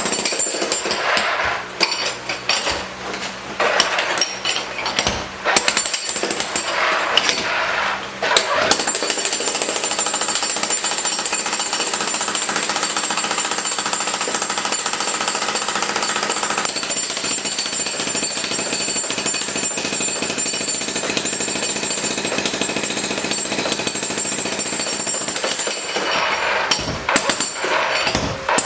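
Jackhammer breaking up concrete curbs, hammering almost without let-up, with a few short breaks in the first several seconds and again near the end.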